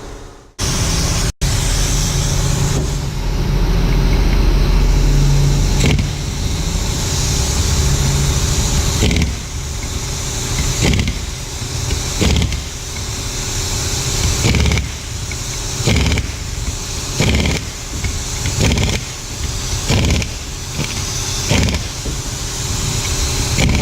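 Handheld power tool motor running steadily for a few seconds, then run in short bursts about once a second, as bolts in the transmission are run down.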